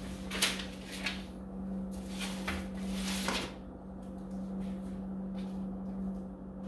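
Paper rustling as sheets and a booklet are handled and leafed through, busiest in the first half and sparser after, over a steady low hum.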